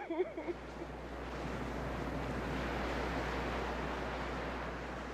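Ocean surf breaking on a beach: a steady rushing wash over a deep rumble, swelling toward the middle and slowly easing off.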